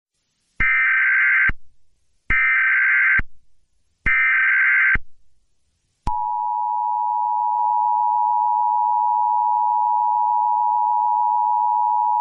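Emergency Alert System SAME header: three bursts of warbling digital data tones, each about a second long with short silences between. About six seconds in, the steady two-tone EAS attention signal begins and holds.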